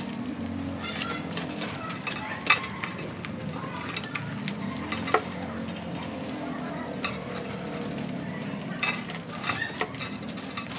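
A hand tool scratching and picking compacted soil out of a ficus bonsai's root ball: a steady crumbling, crackling scrape with sharp clicks now and then where it strikes roots.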